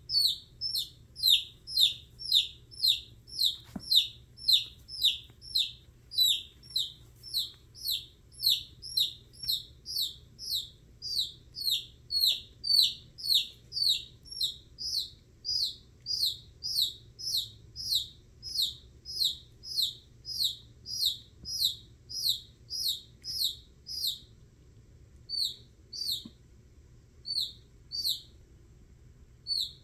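Baby chick peeping loudly and insistently, about two short falling peeps a second, thinning out to sparser peeps near the end.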